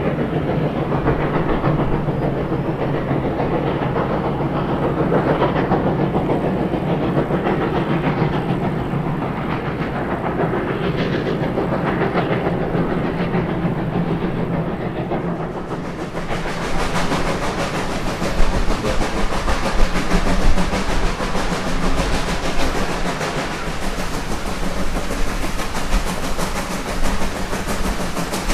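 Reading & Northern 425 steam locomotive working its passenger train, its exhaust and the wheels on the rails making a continuous rumble with slow swells. About halfway through the sound turns brighter and hissier.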